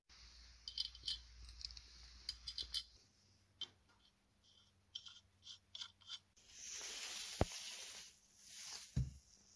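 Small steel nuts and washers clinking as they are handled and set onto the wheel studs of a hub, a quick series of light metallic clicks. Later come two longer scraping rustles as the hub assembly is handled, with a sharp click in the first and a dull thump at the end of the second.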